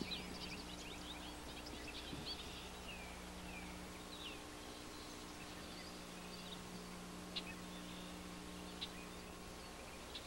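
Small birds chirping and twittering in quick, short calls, busiest in the first second or two and sparser after, over a steady low hum.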